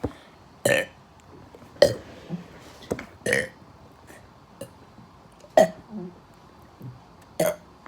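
A person deliberately burping over and over: a string of short burps, about five loud ones with smaller ones in between, each lasting well under a second.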